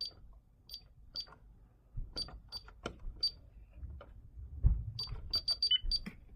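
Short electronic key beeps from a fire-alarm control panel's keypad as its buttons are pressed, about a dozen high beeps at an irregular pace, in two runs, the second quicker. A dull thump comes just before the last run.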